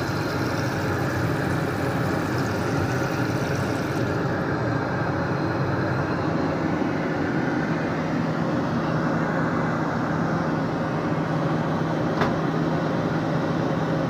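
Airliner cabin noise, a steady loud hiss and drone, heard inside the aircraft lavatory. A low steady hum joins about halfway, and a single click comes near the end.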